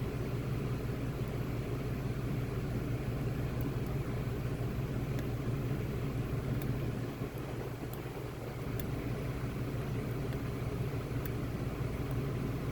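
Steady low hum throughout, with a few faint, light clicks now and then, typical of a pick working the pins and sliders of a Fab Dynamic lock.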